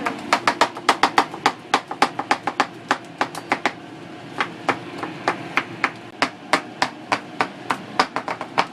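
Two kitchen knives chopping guacamole ingredients against a cutting board: rapid sharp knocks, about five or six a second, slowing to a sparser, uneven rhythm about halfway through.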